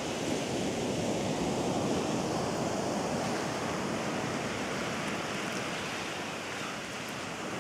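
Sea surf washing onto a sand-and-shingle beach: a steady rush of noise, easing slightly near the end.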